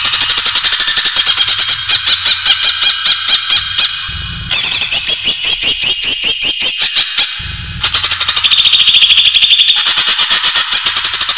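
Greater green leafbird (cucak ijo) song: loud, rapid runs of sharp chirps and whistled notes in several phrases, with short breaks about four and about seven and a half seconds in.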